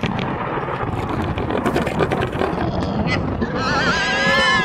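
Hogs grunting in a rough, continuous chorus, then a long high squeal with a wavering pitch starting about three and a half seconds in.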